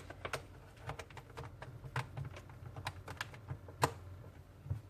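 Irregular sharp clicks and taps of computer keyboard keys and plastic being handled, about fifteen in a few seconds, over a faint low steady hum.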